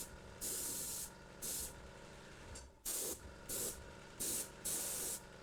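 Airbrush spraying black paint in short hissing bursts, about six in quick succession, as the trigger is pressed and released to lay down shadow.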